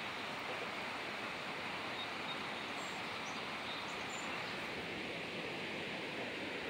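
Steady outdoor background noise: an even hiss with no distinct events, and a few faint, short high chirps around the middle.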